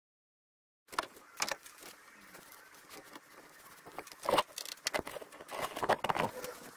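Silence for about the first second, then a brush scrubbing rust off pistons and connecting rods under pickling vinegar in a plastic tub: sloshing liquid, bristle scraping and small knocks, loudest a little past four seconds and around six seconds.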